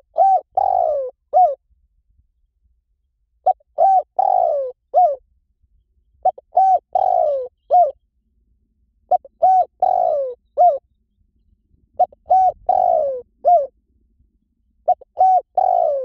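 Spotted dove cooing: a phrase of about five notes, the fourth long and falling, repeated about every three seconds.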